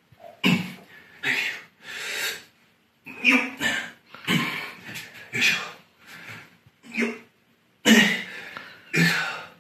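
A man's voice making short wordless vocal sounds, grunts and exclamations, in quick separate bursts about once a second.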